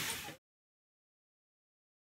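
Diner kitchen noise with a frying sizzle fades out within the first half second, then complete digital silence.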